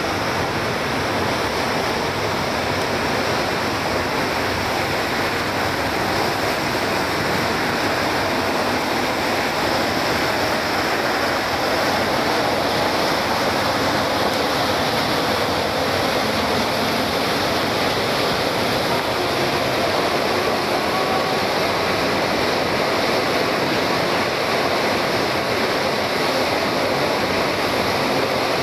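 Steady rushing of churned water in a moving river motor ship's wake, mixed with wind, an even noise without breaks.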